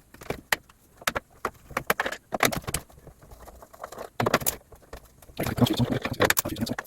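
Hands and a tool working at a small electrical unit's case: irregular clicks, knocks and light metallic rattles as it is opened up, busier near the end.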